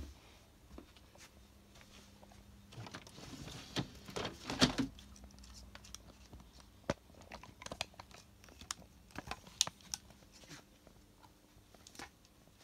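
Handling noise: soft rustling and crinkling with scattered light clicks and taps, busiest about three to five seconds in.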